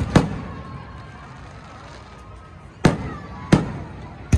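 Aerial fireworks bursting: four sharp bangs, one at the start, then a lull of over two seconds before three more less than a second apart.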